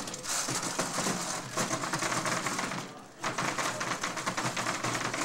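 Small combat robots' drive motors running and their bodies clattering and scraping against each other on a plywood floor: a dense, rapid rattle that breaks off briefly about three seconds in.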